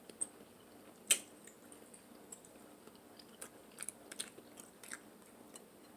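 A person chewing seafood-boil food close to the microphone: soft wet mouth clicks and smacks, with a sharper click about a second in.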